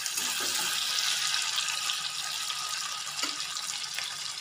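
Wet ground spice paste of coriander, cumin and chillies frying in hot oil in a kadai on a low flame, a steady sizzling hiss with a couple of faint knocks.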